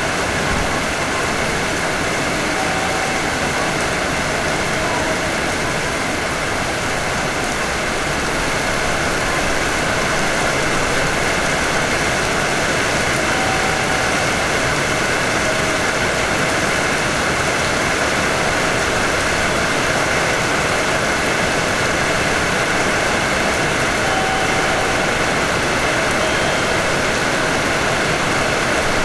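Steady running noise of a Hanshin 5500 series electric train, heard from behind the driver's cab, growing slightly louder about eight seconds in.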